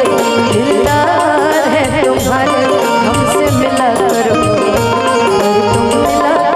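Instrumental music from a live stage band: a melodic lead line over a steady drum beat.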